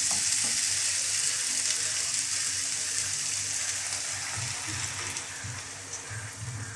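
Onion-tomato masala sizzling in hot oil in a frying pan as potato chunks are stirred through it with a spatula. Water is poured in from a steel tumbler in the second half, and the sizzle grows gradually quieter.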